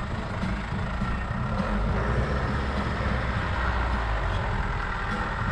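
Ford Ranger 4WD driving along a dirt track: steady engine and tyre noise, picked up outside the vehicle, heaviest in the low rumble.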